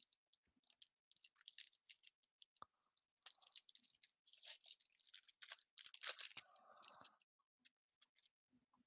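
Faint crinkling and crackling of a foil trading-card pack wrapper being torn open and handled, in scattered small crackles that are thickest in the middle.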